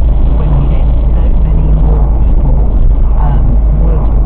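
Loud, steady car interior rumble of engine and tyre noise, as picked up by a dashcam microphone inside a moving car.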